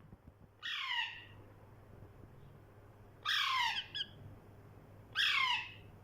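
Parrot calling three times, each call a harsh note about half a second long that falls in pitch, roughly two seconds apart, with a short extra note just after the second.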